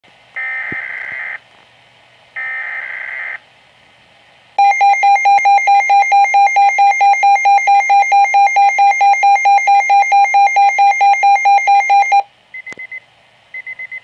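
Midland weather alert radio sounding an alert through its speaker: two buzzy data bursts of about a second each (the SAME digital alert header), then its alarm beeping rapidly, about four beeps a second, for roughly seven and a half seconds. After the alarm stops near the end, short groups of higher beeps follow.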